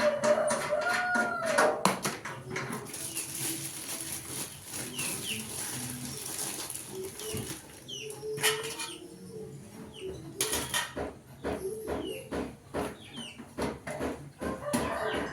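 Irregular clicks and knocks of hard parts being handled, with a few short chirping calls in the background.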